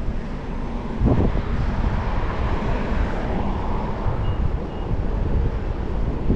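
Wind buffeting the microphone of a GoPro on a moving bicycle, a steady low rumble that gusts louder about a second in.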